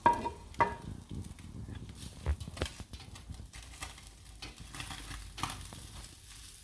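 Metal utensils clinking and knocking against a fireplace grill as grilled fish are taken off it: two ringing clinks right at the start, then scattered clicks and scrapes, with light sizzling.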